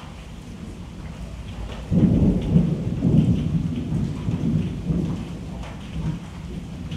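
Steady rain, with thunder coming in suddenly about two seconds in as a low rolling rumble that swells several times and fades over the next few seconds.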